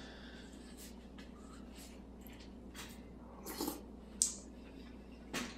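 Faint scattered clicks and rustles of small work noises, with one sharp click about four seconds in, over a low steady hum.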